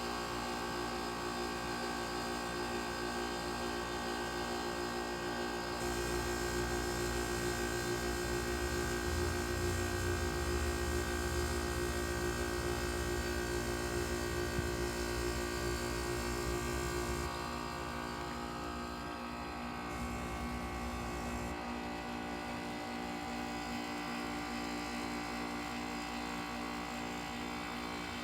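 Goodman GSZ14 heat pump outdoor unit running through a defrost cycle: a steady machine hum with several fixed tones. About six seconds in it grows louder and deeper, and it drops back about seventeen seconds in.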